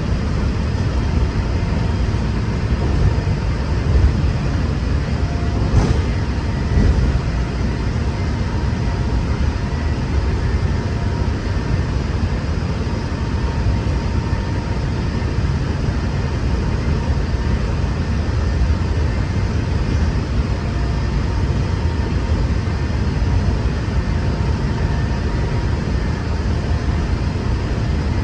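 Walt Disney World monorail running at speed, heard from inside the passenger cabin: a steady rumble with a faint even whine. A brief click about six seconds in.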